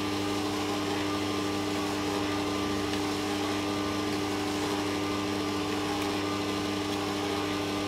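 Bosch stand mixer's electric motor running steadily at low speed, its beater creaming butter and sugar, with an even hum.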